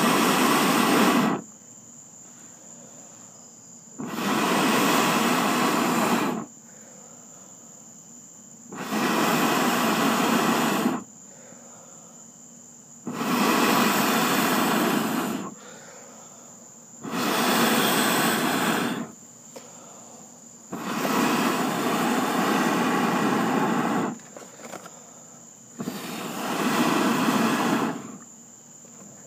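A person blowing hard on smouldering charcoal in a grill to fan it into flame: seven long, rushing blows of about two seconds each, one every four seconds or so. Crickets chirp faintly between the blows.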